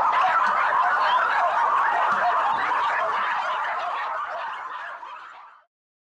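Many kennelled dogs barking and yapping at once in a dense chorus, fading out about five and a half seconds in.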